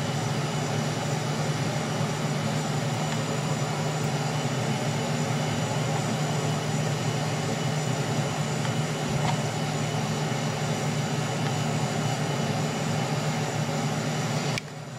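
A steady mechanical whir with a low hum under a broad hiss, like a fan or blower motor running, cutting down sharply near the end.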